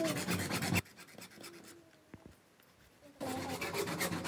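Hacksaw blade cutting through a white plastic drain pipe in quick back-and-forth rasping strokes. The sawing stops under a second in and starts again about three seconds in.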